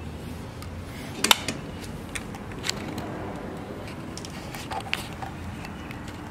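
Small metallic clicks and taps of a screwdriver and pick working a cotter pin out of a boat transmission's shift cable linkage, the sharpest click about a second in and a few lighter ones later, over a steady low background hum.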